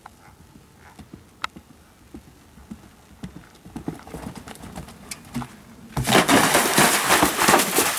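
Horse's hoofbeats thudding on turf as it canters in, then, about six seconds in, the horse drops into a pond and loud splashing through the water follows to the end.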